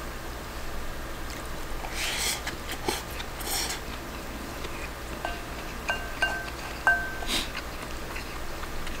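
Metal spoon scooping rice from a ceramic bowl and the sounds of eating. It gives several sharp, brief ringing clinks against the bowl's rim and sides in the second half.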